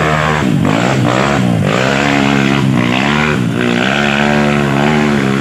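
Dirt bike engine revving hard, its pitch dropping and climbing again several times.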